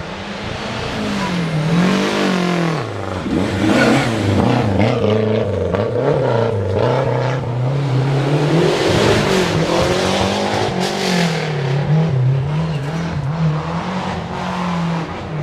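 Historic rally car engine at full race pace on a special stage, revving up and falling back again and again through gear changes and lifts. It grows louder over the first couple of seconds and fades near the end.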